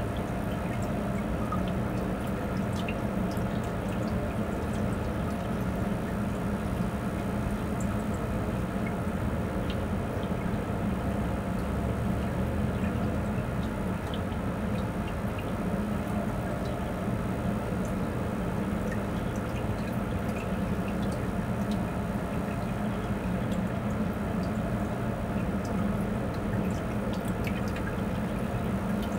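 Reef aquarium running: a steady trickle of moving water over a low electrical hum from the tank's pump, with scattered faint ticks.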